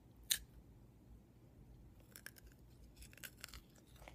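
A sharp crack as teeth bite into a Violet Crumble bar of chocolate-coated honeycomb, followed by faint crunching in two short spells about two and three seconds in as it is chewed.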